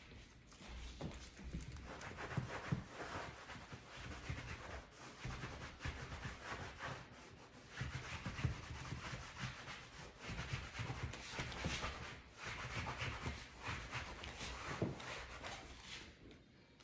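A cloth rubbing back and forth over leather couch upholstery, working in a cleaner-conditioner to bring up a shine: continuous scuffing in uneven strokes.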